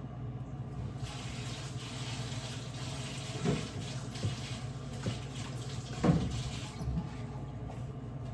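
Sink tap running, water splashing into the basin while hands are washed. It comes on about a second in and shuts off near the end, with two knocks in between.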